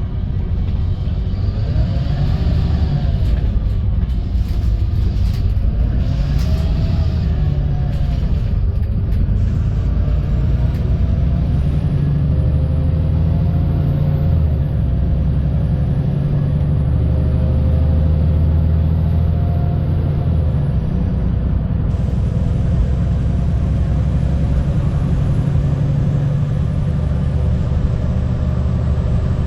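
VDL SB200 Wright Pulsar 2 single-deck bus's diesel engine and road rumble, heard from inside the bus while under way. The engine note rises and falls a few times in the first several seconds, then runs steadier, with a faint high whine through the middle.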